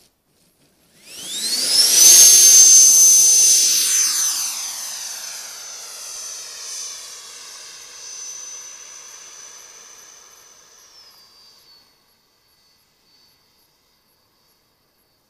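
Radio-controlled EL-39 model jet making a pass: a high whine climbs in about a second in and is loudest about two seconds in, with a sweeping, phasing sound as it goes by. It then fades away over the next ten seconds as the jet flies off, the whine dropping a little just before it dies out.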